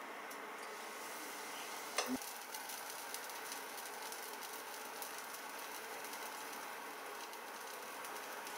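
Moong dal dosa batter sizzling steadily on a hot nonstick tawa, with fine crackling throughout and one sharp knock about two seconds in.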